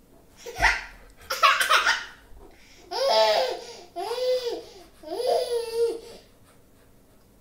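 A young child laughing and squealing: two short bursts, then three long high-pitched calls, each rising and falling in pitch.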